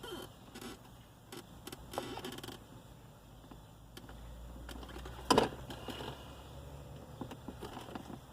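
Faint clicks and handling noises over a low hum, with one louder knock about five seconds in.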